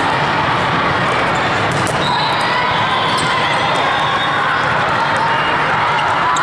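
Steady din of a large sports hall full of volleyball play: many voices at once, with volleyballs being hit and bouncing on the court in short sharp knocks.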